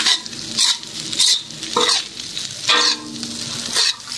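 Metal spatula scraping and tossing rice around a wok during stir-frying, with a light sizzle underneath. The scraping strokes come about every half-second to second.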